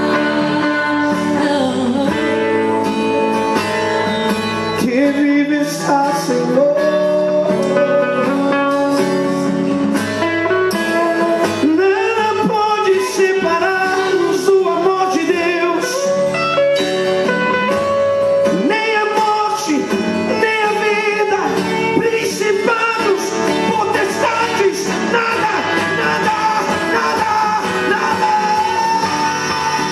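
Live Christian worship music: voices singing into microphones over a band, with guitar in the accompaniment.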